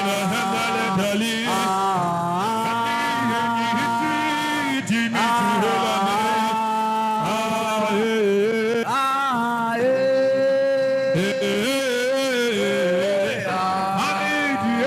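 A voice singing a slow chant in long held notes that slide up and down between pitches, over a steady low drone.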